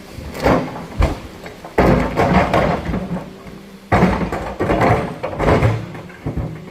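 Heavy knocks and grinding scrapes of boulders being shifted by heavy equipment, in several loud, irregular bouts.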